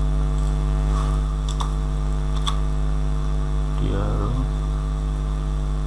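Steady electrical mains hum on the recording. Around the middle come a few faint computer keyboard clicks as a filename is retyped.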